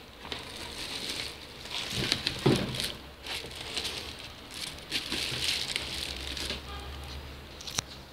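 Plastic wrapping around a stand mixer crinkling and rustling against molded pulp packaging as the mixer is unpacked, with a few light knocks and a sharp tap near the end.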